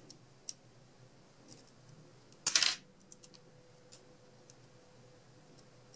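Pliers cutting through bundled stem wires to trim them flush: one sharp metallic snip about two and a half seconds in, with a few light clicks of metal before and after.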